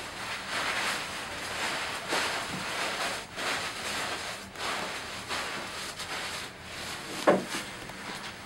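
Plastic rustle and crinkle of a disposable isolation gown being rolled up and handled, in repeated swells. A single knock near the end as a metal folding chair is moved into place.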